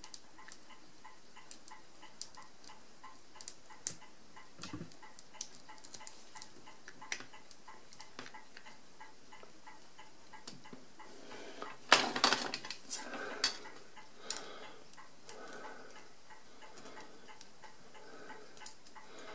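Light metallic clicks and clinks of small steel calculator parts, screws and a screwdriver being handled on a stainless steel tray, with a louder cluster of clatter about twelve seconds in. A faint, evenly spaced ticking runs underneath.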